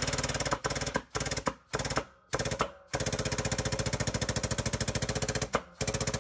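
A hydraulic shop press's pump chattering rapidly as the press forces a cam gear onto a Cummins 6.7L camshaft. It runs in a string of short bursts with brief breaks, then one longer run of about two and a half seconds in the middle.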